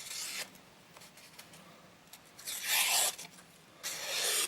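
Small penknife blade slicing through a sheet of paper in three rasping strokes, testing the edge's sharpness; the middle stroke is the longest and loudest.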